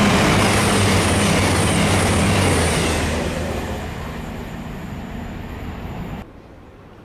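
Train passing through the station at speed: loud rushing wheel-on-rail noise with a steady low hum, easing off after about three seconds and cutting off suddenly about six seconds in.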